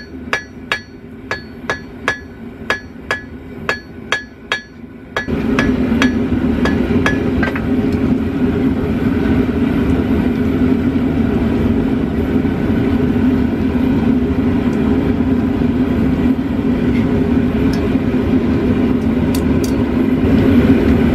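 Hand hammer striking steel bar stock on an anvil, about two and a half ringing blows a second. About five seconds in, a steady, loud, low rushing noise starts abruptly and drowns out the last few fainter blows.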